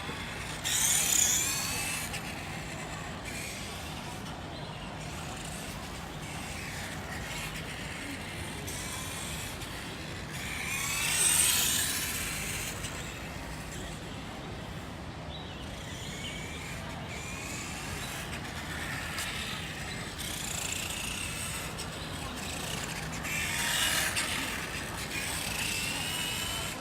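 Toy-scale radio-controlled Ducati motorcycle's motor whining past three times, each pass swelling and fading with a rising-then-falling pitch.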